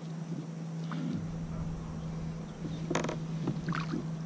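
Handling sounds as a lure is worked loose from a landing net holding a caught brown trout: a few short clicks and rustles, the sharpest about three seconds in, over a steady low hum.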